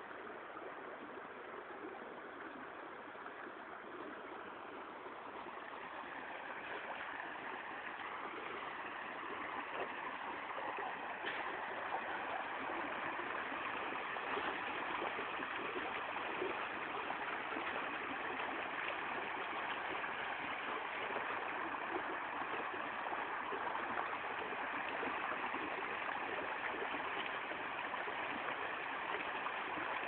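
Mountain stream water rushing and splashing over rocks, a steady noise that grows louder over the first ten seconds or so and then holds.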